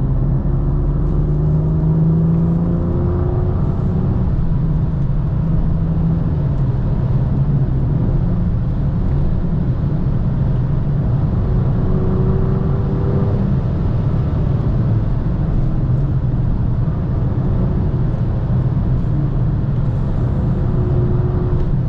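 BMW M2 (F87) engine and exhaust heard from onboard at speed, with a steady drone of road and tyre noise. The engine note climbs in pitch three times as the car accelerates.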